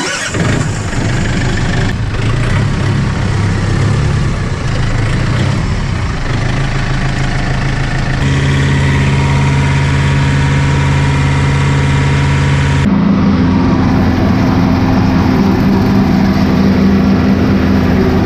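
Compact tractor engine running steadily under load. The pitch and tone shift abruptly twice, about 8 and 13 seconds in, where clips are joined. In the last part it is driving a brush hog (rotary cutter) through tall weeds.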